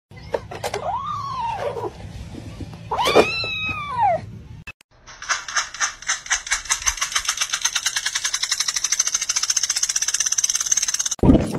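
A cat meowing twice, each call rising then falling in pitch. Then, after a cut, a fast, even rapid pulsing of ticks that runs for about six seconds.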